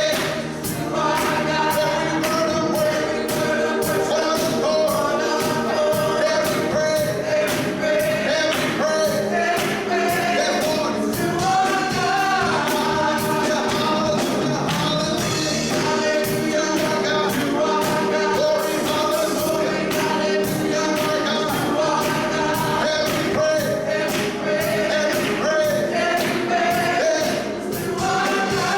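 Gospel choir singing over a band, with a steady drum beat.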